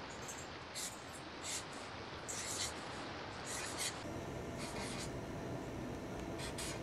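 Permanent marker writing on a sheet of paper: short, high scratchy strokes, about six of them, as letters are drawn, over a steady low hiss.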